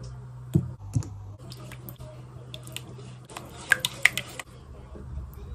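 Spatula stirring a thick sauce in a non-stick pan: two soft thumps about half a second and a second in, then a cluster of sharp clicks of the utensil against the pan a little after three seconds, over a steady low hum.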